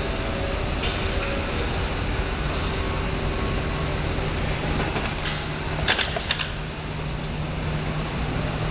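2014 Corvette Stingray's 6.2-litre LT1 V8 running at low speed as the new car drives off the end of the assembly line, a steady low rumble over factory hum. A few sharp metallic clanks come about six seconds in.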